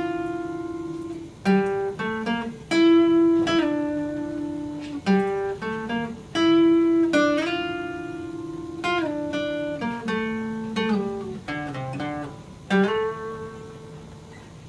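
Acoustic guitar being picked: single notes and chords, each struck sharply and left to ring, with a few sliding notes, in a phrase that comes round again every few seconds.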